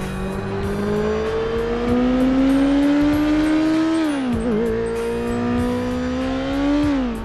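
KTM 690 Duke's single-cylinder engine pulling steadily up through the revs under acceleration. It drops sharply at a gear change about four seconds in, climbs again, and drops once more near the end for the next shift.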